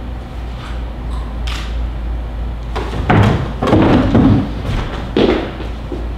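Knocks and thumps as a performer pushes up off two wooden bentwood chairs, followed by quick footsteps across the wooden stage, loudest in a cluster about three to five and a half seconds in, over a steady low hum.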